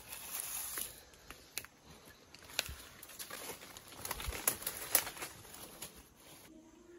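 Dry leaf litter and twigs rustling and crackling under handling, with scattered sharp snaps; the crackling stops about six and a half seconds in.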